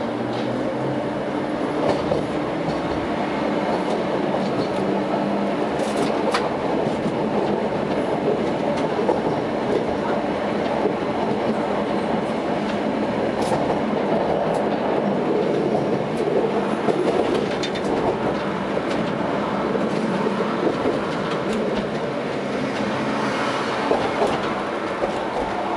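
Tatra T6A5 tram running along its track, heard from inside the driver's cab: a steady rolling rumble of steel wheels on rail, with a low motor hum for the first few seconds and a few sharp clicks of the wheels over rail joints.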